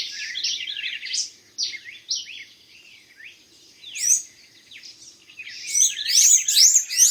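Many birds chirping and calling over one another, fast high chirps thick at first, thinning out in the middle and swelling again from about five and a half seconds in.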